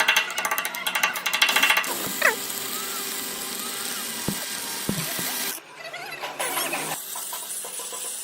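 A power tool working metal, running with a rapid, even rattle for about two seconds, then a steadier noise with a few short squeaks and knocks.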